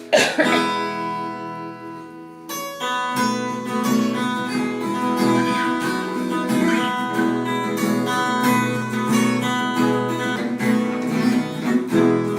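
Acoustic guitar (violão) strummed: a chord rings out and fades, then steady rhythmic strumming starts about two and a half seconds in, the instrumental introduction to a worship song.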